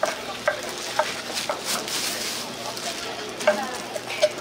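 Food sizzling as it is stir-fried on a hot griddle, with a metal spatula scraping and clicking irregularly against the plate.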